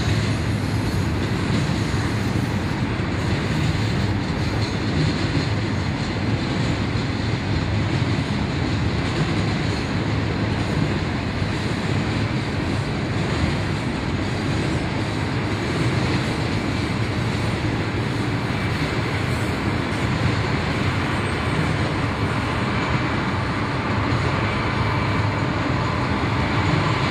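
Two intermodal freight trains rolling past at once, one on the flyover and one on the level below: a steady rumble of freight car wheels on the rails.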